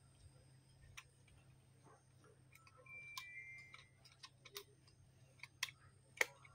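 Scattered small clicks and taps of plastic and metal parts as the replacement LCD panel is handled and pressed into place on a Fujifilm X-M1 camera body, the loudest click near the end. A brief faint high-pitched two-note tone sounds about halfway, over a steady low hum.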